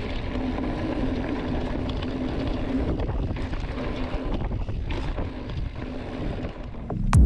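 2022 Scott Spark RC mountain bike rolling fast over a gravel forest trail: a steady tyre rumble and rattle, mixed with wind on the camera microphone.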